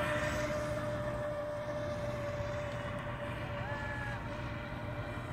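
Feilun FT012 RC boat's brushless electric motor whining at a steady pitch at speed, fading slightly as the boat runs away, over a low hiss of wind and water.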